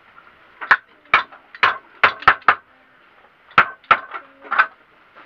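Hammer blows on the wooden frame of a bed under repair: about ten sharp strikes in two runs, with a short pause a little past halfway.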